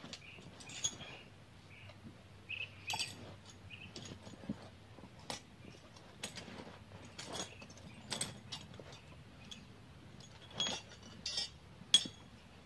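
Scattered metallic clinks and clicks of hand tools and small metal parts being picked up and handled, irregular and sparse, with one sharper click near the end. Short high chirps from a bird are heard in the first few seconds.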